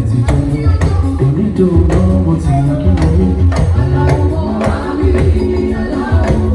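Loud band music with a heavy bass line and a steady drum beat, and a voice singing over it, as in a band's sound check.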